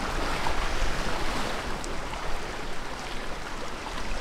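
Sea water washing steadily against a rocky shoreline, a constant rushing noise.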